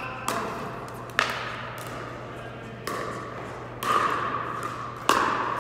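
Pickleball paddles striking the plastic ball: about four sharp pops a second or more apart, each ringing briefly in a large indoor hall.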